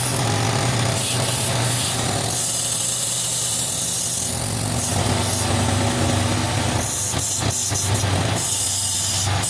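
Wood lathe running with a steady motor hum while a chisel cuts into the spinning log, the hiss of the cut coming and going.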